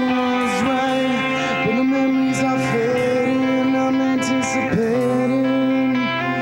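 Pop-rock band playing the instrumental intro of a song, with long held notes that bend and slide in pitch over a steady backing.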